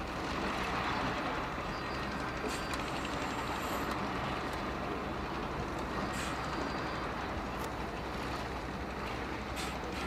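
Heavy earthmoving equipment's diesel engine running steadily, with a low constant hum under a noisy wash. A few faint, brief high clinks come through.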